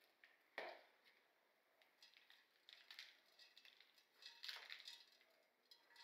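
Quiet handling sounds: a single knock about half a second in, then scattered short scraping and rustling noises around the middle and again near the end.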